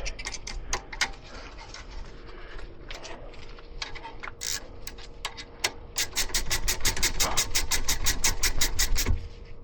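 Metal tool clicks and knocks on brake hardware, then a fast, even clicking, about ten a second, for about three seconds from a wrench being worked during brake reassembly.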